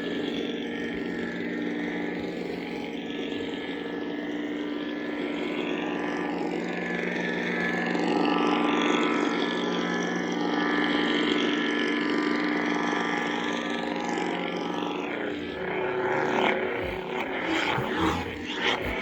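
Lightsaber hum from the BlueForce 'Return of the Sith' soundfont, a steady electric drone swelling and fading as the blade is swung. Near the end come several sharp hits, like blade clashes.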